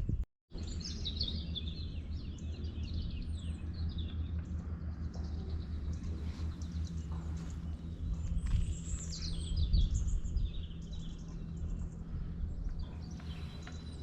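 Songbirds chirping and singing, many short calls and falling whistles, over a steady low background rumble.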